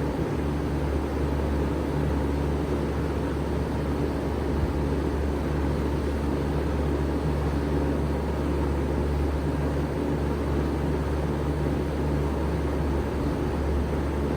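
1995 Bard 3-ton wall-hung heat pump running steadily in cooling mode: a low, even compressor hum under the steady rush of its fan.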